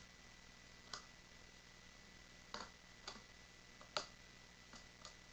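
Faint, irregular light clicks and taps from a spring bolt-action airsoft sniper rifle being handled, about six in all, the sharpest about four seconds in.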